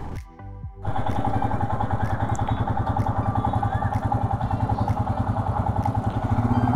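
Royal Enfield Himalayan's 411 cc single-cylinder engine idling with a steady, rapid pulse. It starts about a second in, after a brief quieter dip.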